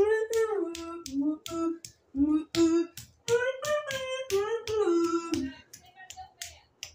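A high voice singing the tune of a children's song without words, note by note, over a light percussive beat.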